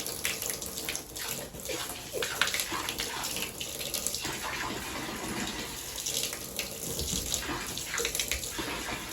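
Water being poured in a steady stream into a wolf's drinking pot, splashing as it fills.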